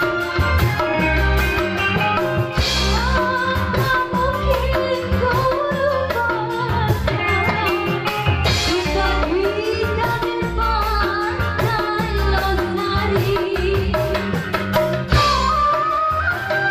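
Live band music with a female singer singing a melody over a steady drum beat, electric guitar and keyboard.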